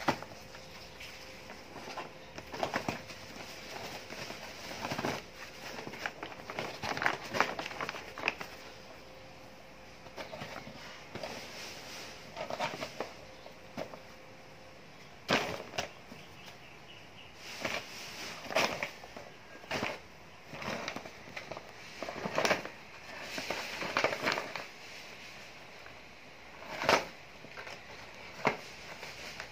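Brown paper bag crinkling and rustling in irregular bursts as cats shift under it and paw at it, with a few sharper crackles.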